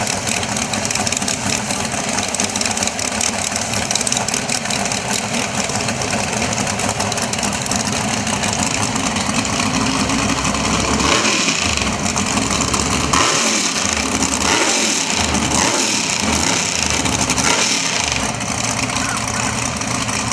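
Drag race car engines running loudly, getting louder and rougher about halfway through.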